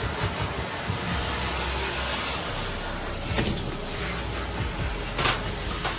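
Water hissing steadily from a grooming-tub hose sprayer onto a wet dog's coat, with two brief clicks a little past the middle and near the end.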